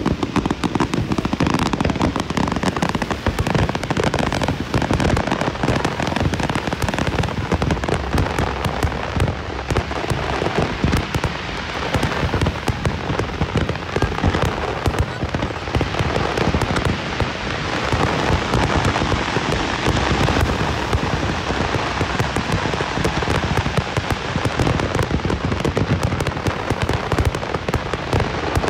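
Fireworks display at full intensity: a dense, unbroken barrage of rapid crackling and popping bursts over low booms.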